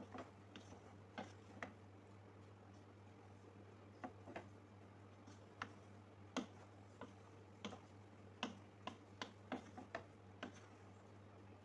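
A cooking utensil clicking and knocking against a metal pot while stir-fried noodles are tossed and mixed. The sharp clicks come irregularly and grow more frequent in the second half, over a low steady hum.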